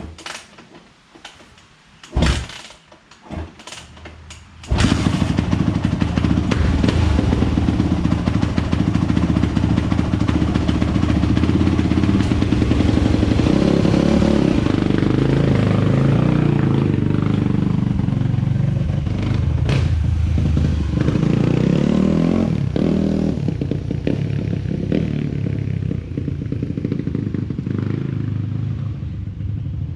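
Yamaha YZ426F single-cylinder four-stroke dirt bike engine being kick-started: a few thumps, then about five seconds in the engine catches and runs, with some rises and falls in speed in the middle.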